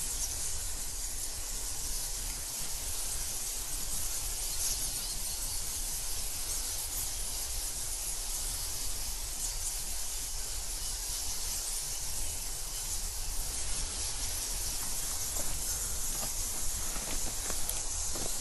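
Steady high hiss of massed chittering from a large colony of bats streaming out of a cave mouth, with a low rumble underneath.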